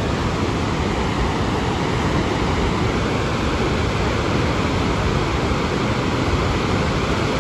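A flooded mountain stream running thick with mud and rocks, giving a steady rushing noise.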